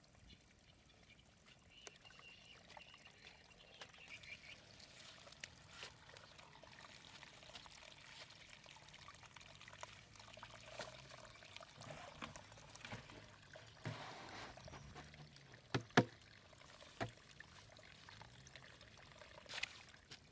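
Flowing water pouring and trickling, with scattered knocks; the loudest knocks come about sixteen seconds in.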